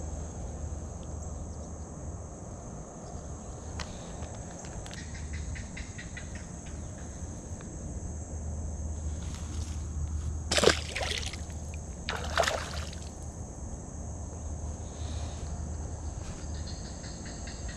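Water sloshing and splashing as a largemouth bass is let back into the creek, with two short loud splashes about a second and a half apart near the middle, over a steady high insect drone.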